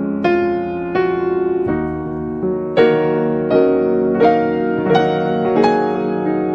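Slow, gentle piano music: notes and chords struck one after another, roughly every half second to second, each ringing on and fading.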